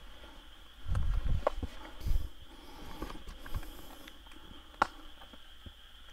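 Footsteps and rustling of someone walking through overgrown ground, heaviest in the first couple of seconds, with a few sharp clicks. A steady high chirring of crickets runs underneath.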